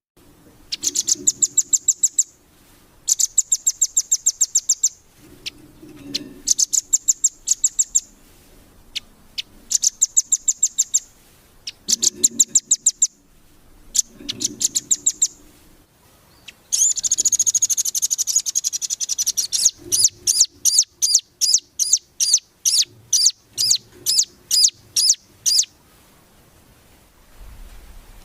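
Velvet-fronted nuthatch (rambatan) singing: rapid high trills of chips in repeated bursts of one to two seconds, with a denser unbroken trill about two-thirds through followed by a run of evenly spaced single chips.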